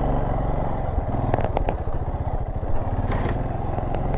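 Dirt bike engine running steadily at low trail speed, with a few sharp knocks about a second and a half in and a brief noisy swish a little after three seconds.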